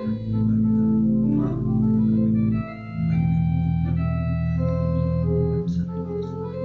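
Church organ playing slow, sustained chords over a deep held bass, the harmony changing about two and a half seconds in and again near the end.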